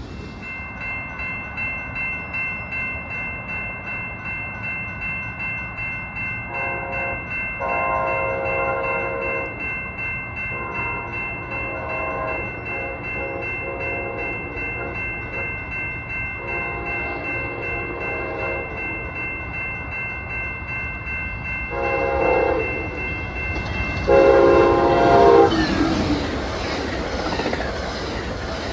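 Grade-crossing warning bells ringing steadily as an approaching passenger train sounds its multi-chime horn for the crossing in six blasts, the last two close together. Near the end the train's bilevel passenger cars rush past.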